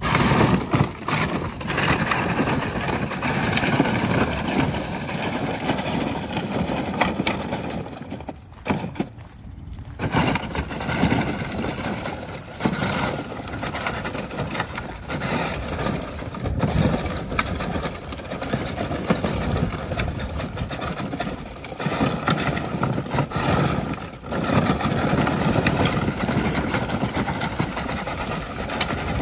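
Battery-powered ride-on toy car (Power Wheels Halo Warthog) driving over a dirt path: its electric drive motors and gearboxes whine while the plastic wheels rumble and crunch over dirt and small stones. It stops briefly about eight and a half seconds in, then moves off again.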